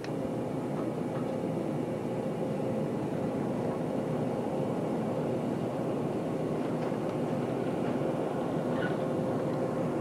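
Steady hum and rumble of trains in a large station train shed, with a constant mid-pitched whine running through it.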